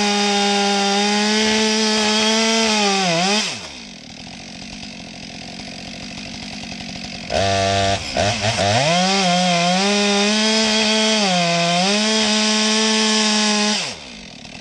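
Two-stroke chainsaw at full throttle cutting through a wooden stump. It drops off about three and a half seconds in, comes back to full revs about halfway through, dips in pitch twice briefly as it bites into the wood, and drops off again near the end.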